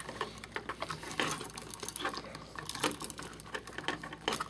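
Pliers twisting two bare copper ground wires together: a run of small, irregular clicks and scrapes of metal on metal.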